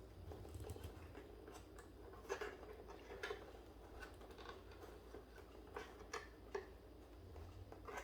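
Faint, irregular light clicks and taps over a low steady hum, a few every second or so.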